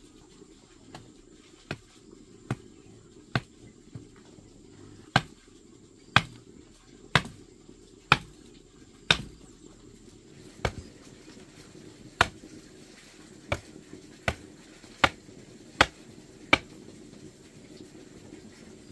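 Repeated sharp strikes of a hand tool, about one a second: some seventeen knocks, faint at first and louder from about five seconds in, stopping shortly before the end.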